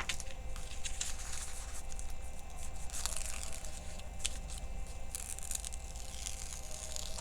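Plastic film on a diamond painting canvas crinkling and crackling as the canvas is unrolled and handled: irregular rustles and small crackles, a little busier about three and five seconds in.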